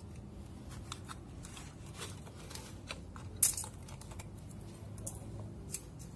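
Small clicks, taps and crinkling as the foil seal on the mouth of a new plastic coolant bottle is cut with scissors and picked off by hand, with a sharper crackle about three and a half seconds in.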